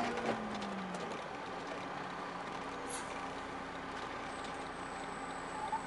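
Motorhome cruising at freeway speed, heard from inside the cab: steady road and engine noise with a low engine drone that dips slightly in pitch in the first second, then holds steady.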